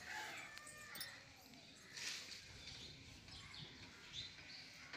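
Faint distant voices and animal calls over quiet ambient noise.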